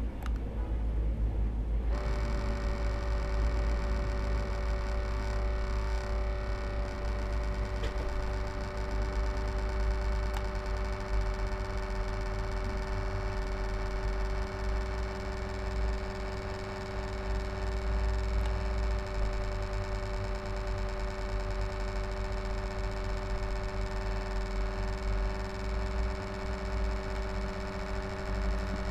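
HP Envy m6 laptop cooling fan running with a steady hum and a low rumble, making the strange noise whose cause the owner does not know. About two seconds in, a steady two-note whine sets in and holds.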